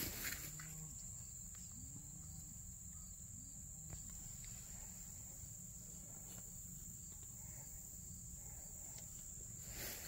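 Steady, high-pitched chorus of crickets, with a low rumble underneath.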